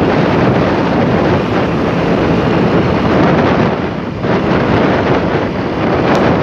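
Wind buffeting the microphone over the noise of passing road traffic, easing briefly about four seconds in.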